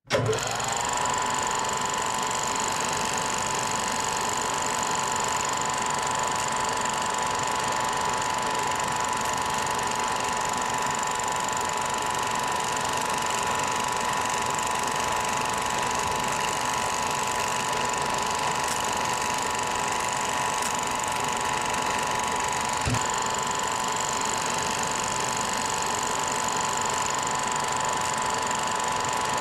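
A small machine running steadily with a fine mechanical clatter. Its hum rises in pitch as it starts up in the first second, then holds steady. There is a single low knock about 23 seconds in.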